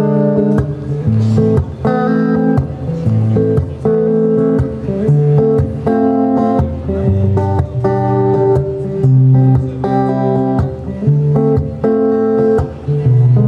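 Electric guitar, a sunburst single-cut Les Paul-style, playing the strummed instrumental intro of a song through a small street amplification rig: chords struck and let ring, changing about once a second.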